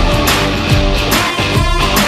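Loud rock-style background music with a steady drum beat and guitar.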